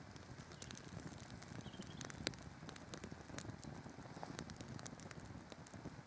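Small campfire of thin dry sticks crackling, with scattered sharp pops, the loudest a little over two seconds in.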